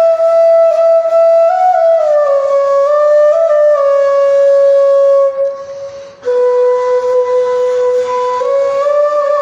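Background music: a solo flute melody of slow, held notes, with a short break a little past the middle.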